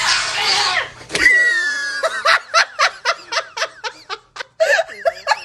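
A person laughing in quick repeated bursts. It is preceded by a short hissing noise and a high-pitched squeal in the first second or so.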